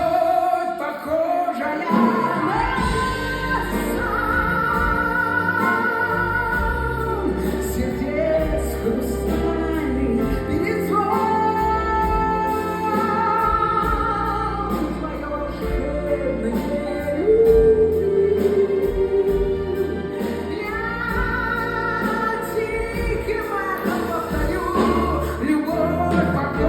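Music: a woman singing long held notes over instrumental accompaniment.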